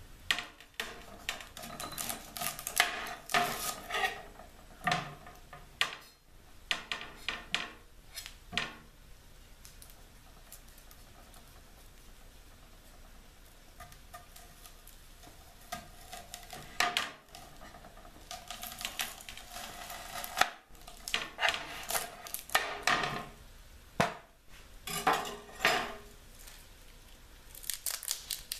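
Chef's knife clicking and scraping against a cutting board in irregular bursts while an onion is peeled, with a quieter pause partway through.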